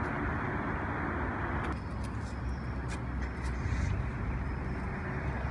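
Outdoor background noise: a steady low rumble, with a hiss that drops away suddenly just under two seconds in, followed by a few faint clicks.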